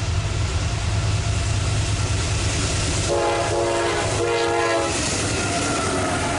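Diesel freight locomotives running steadily as the train approaches and passes, with the lead unit's air horn sounding three blasts about three seconds in, the first short and the next two longer.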